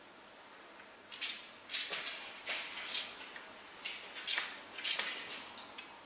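Cat crunching dry kibble from a metal bowl: a run of short, sharp, irregular crunches and clicks starting about a second in and stopping near the end.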